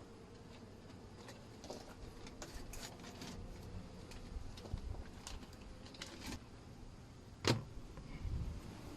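Scattered light clicks and knocks of wooden beehive boxes and frames being handled, with one sharper knock about seven and a half seconds in.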